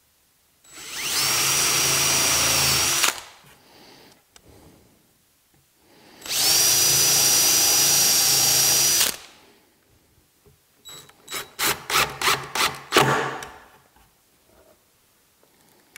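DeWalt cordless drill/driver running in two steady whining runs of two to three seconds each, then a string of about ten short, quick trigger pulses.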